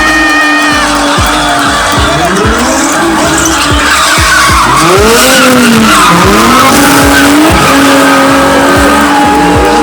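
Drift cars sliding in tandem, engines revving up and down and tyres squealing, over background music with a steady beat.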